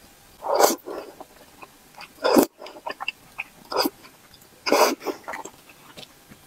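Sauce-coated zhajiang noodles slurped into the mouth in four loud, short slurps, with small wet chewing clicks between them.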